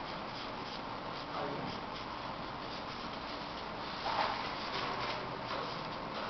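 Felt-tip marker strokes scratching across paper, over a steady background hiss, with a louder stroke about four seconds in.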